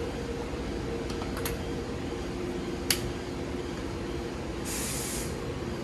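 Steady workshop hum, with a few light clicks, one sharp click about three seconds in, and a short hiss about five seconds in.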